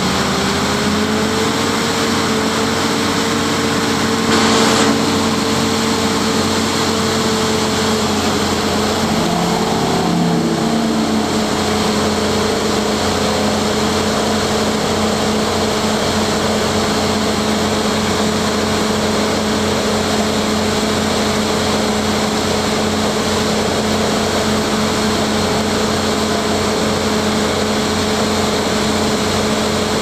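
Crane-hung vibratory pile hammer running steadily, a constant mechanical hum with a steady whine, as it sinks steel piles into the ground. A brief knock about four and a half seconds in.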